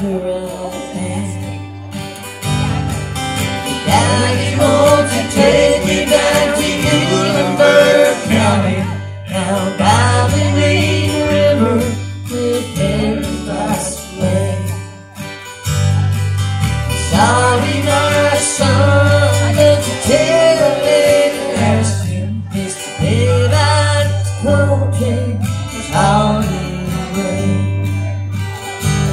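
Live country band playing, with strummed acoustic guitars and an electric guitar over a steady bass line.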